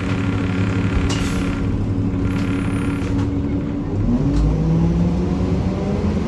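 1993 Gillig Phantom transit bus under way, its Cummins ISM diesel running with the loud grinding noise that the owner suspects comes from the Allison B400R transmission. About four seconds in, the engine pitch dips and the low rumble grows louder, then the pitch climbs slowly as the bus pulls on.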